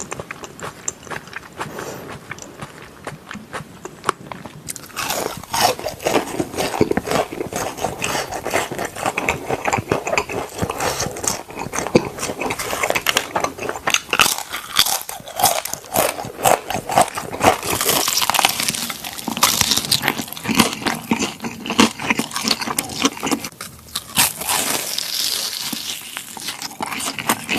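Close-up biting and chewing of crunchy food, a dense run of irregular crunches and crackles that gets busier and louder about five seconds in.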